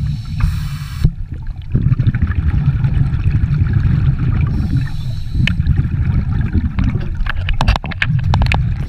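Scuba breathing heard underwater through a camera housing: a short regulator hiss on inhaling twice, about four seconds apart, with a rumble of exhaled bubbles between. A few sharp clicks near the end.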